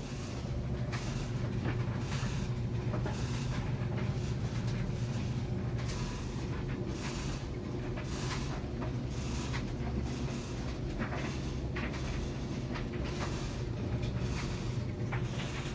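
GE stackable dryer running, a steady low hum with a grinding scrape that recurs roughly once a second as the drum turns. The grinding is a fault.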